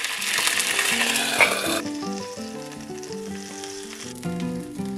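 Egg frying inside a steel ring in a cast-iron skillet: a loud, hissing sizzle that drops off after about two seconds and carries on more quietly.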